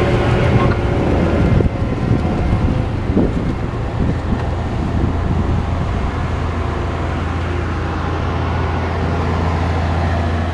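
Case IH Puma CVX tractor running while pulling a loaded Joskin tipper trailer of sugar beet, heard close from the trailer: a steady low rumble with irregular knocks in the first few seconds.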